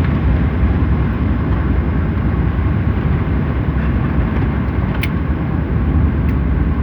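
Steady loud cabin rumble of an Emirates airliner during landing, engine and airflow noise heard from a passenger seat, with a brief click about five seconds in.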